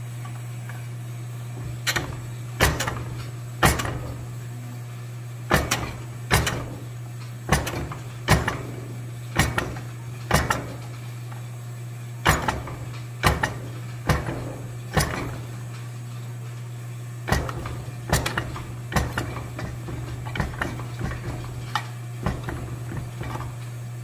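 Upper die of a forging hammer striking red-hot steel held in tongs on the bottom tool: about twenty single blows roughly a second apart, each with a short metallic ring, and lighter, quicker taps near the end. A steady low hum runs underneath.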